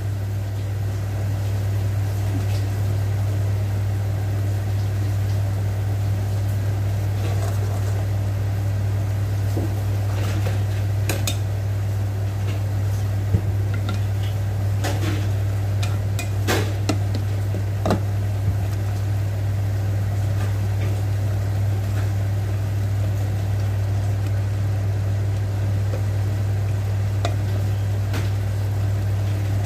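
Kangkong (water spinach) boiling in a metal pot under a steady low hum. A wooden spoon stirring knocks against the pot a few times, mostly in the middle of the stretch.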